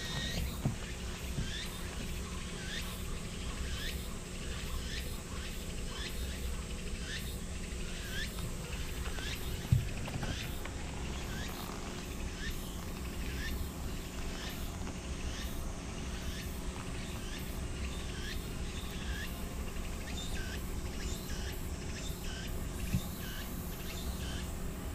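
A short, high chirp repeats steadily, about three every two seconds, over a constant low rumble. A single sharp knock comes about ten seconds in.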